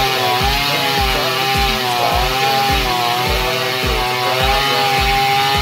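Jonsered 535 two-stroke chainsaw running at full throttle while cutting through a thick log, its engine pitch wavering as it bogs and recovers under load. A steady bass beat from backing music runs underneath.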